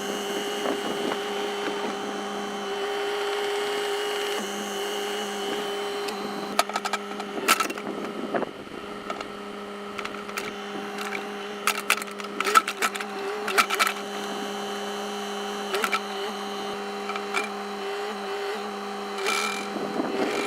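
Bobcat mini excavator's engine running steadily as sped-up footage, so it comes across as a high, even motor whine. Several sharp knocks and clanks come in quick clusters through the middle, from the machine working the dirt.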